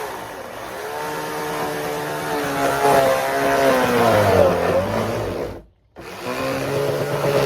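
Chainsaw running, its pitch sagging and rising again about four seconds in. It breaks off abruptly for a moment near the end and then carries on.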